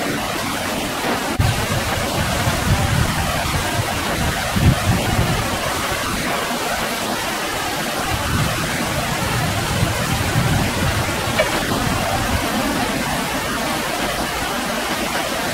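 Steady rushing of flowing river water, with irregular low rumbles now and then.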